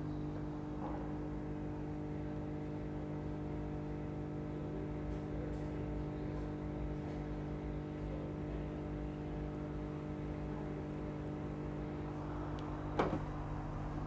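Steady electrical hum made of several fixed tones, with a single sharp click near the end.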